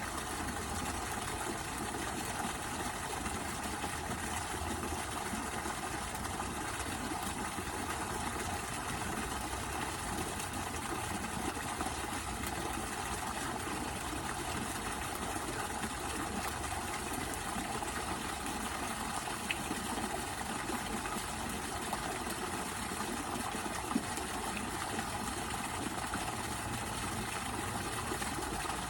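Waterfall: a steady rush of falling water splashing into a pool, with one small tick about three-quarters of the way through.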